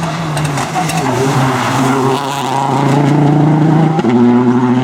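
Rally car engine running hard and drawing nearer, getting louder; its engine note holds steady, then jumps up in pitch about four seconds in.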